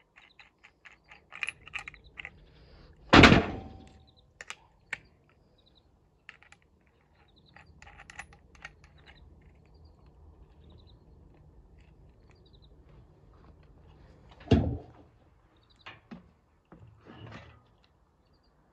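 Clicks and clinks of tools and metal parts being handled, with two loud knocks, one about three seconds in and another about three quarters of the way through, over a faint low hum.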